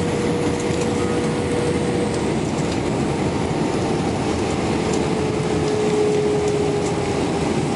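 Airliner cabin noise as a Delta Airbus rolls on the ground after landing: a steady rumble of the wheels and airframe under the jet engines' whine. The whine holds one pitch and drops slightly about two seconds in.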